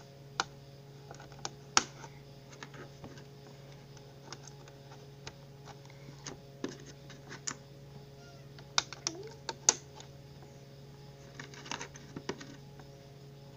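Plastic Lego bricks clicking and tapping as they are handled and pressed onto a Lego plate. Scattered sharp clicks come in small clusters, the busiest about nine and twelve seconds in, over a faint steady low hum.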